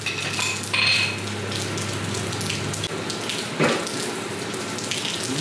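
Fluid from the opened mini bike engine case trickling and splashing steadily into a plastic drain pan, with a few light clinks.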